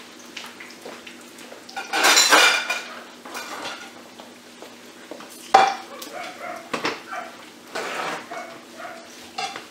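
Dishes and metal utensils clattering in a kitchen. The loudest clatter comes about two seconds in, a sharp knock follows just past halfway, and lighter knocks come after it.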